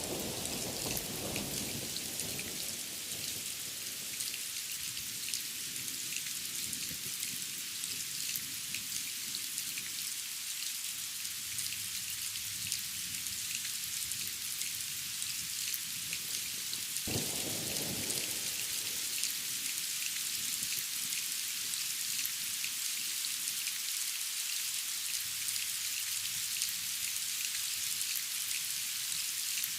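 Steady hiss of falling water, with fine drop-like patter in the highs. A low rumble sets in suddenly about seventeen seconds in and fades within a couple of seconds, with softer rumbling near the start and end.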